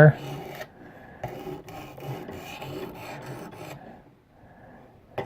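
Sharpening stone, a vitrified aluminum-oxide stone on a guided sharpening system, rasping along a knife's S30V steel edge in repeated back-and-forth strokes about every half second; the strokes fade near the end.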